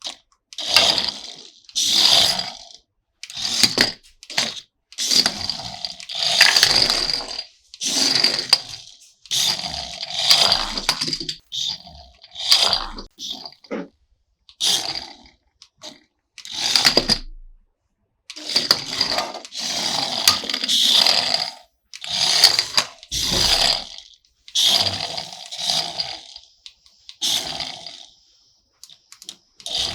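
Handling noise from toys and their packaging: irregular bursts of scraping, rattling and crinkling, each lasting about half a second to two seconds, with silent gaps between them.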